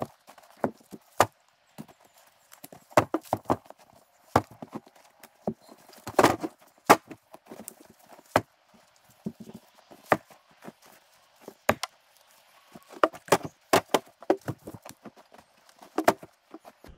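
Split firewood logs knocking against each other and the plastic sled as they are stacked in by hand: irregular wooden clunks, some coming in quick clusters.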